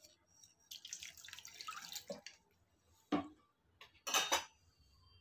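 Watery semolina batter being stirred with a steel spoon in a steel bowl after a little more water has gone in: faint wet splashing for about a second, then two short knocks.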